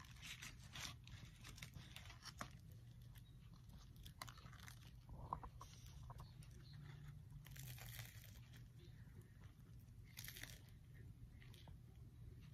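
Faint close-up chewing and biting of crunchy fried food, a scatter of small crunches and mouth noises over a low steady hum.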